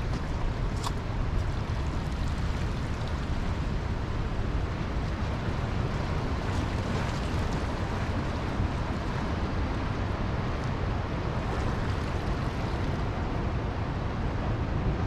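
Wind buffeting the microphone in a steady low rumble, over a continuous wash of sea water and surf.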